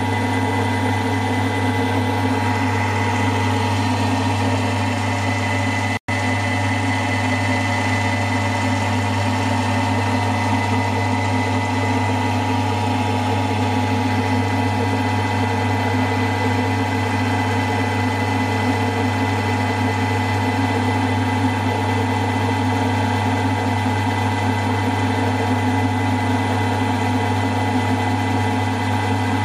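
Milling machine running steadily while a 1/8 inch end mill cuts through a metal casting: a constant motor hum with cutting noise over it. The sound cuts out for an instant about six seconds in.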